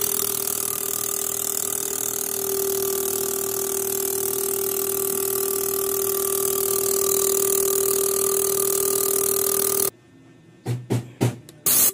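Fuel injector tester running a test on 4A-FE fuel injectors: its pump motor gives a steady whine over a hiss, then cuts off suddenly about ten seconds in, followed by a few short clicks.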